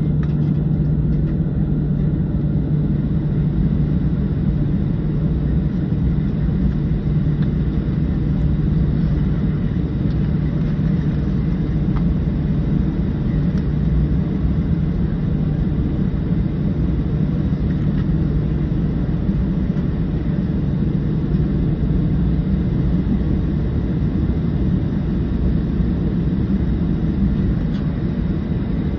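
Steady cabin rumble of a Boeing 737-700 with its CFM56-7 jet engines at low, even power, under a constant low hum.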